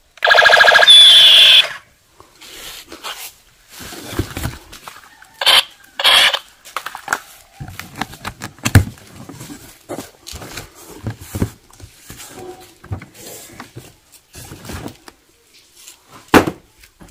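Battery-powered toy machine gun playing its electronic firing sound effect, a loud burst with a falling whine lasting under two seconds. Then packing tape is peeled off a cardboard box and the box and boxed toys are handled, with scattered rustles, tearing and knocks.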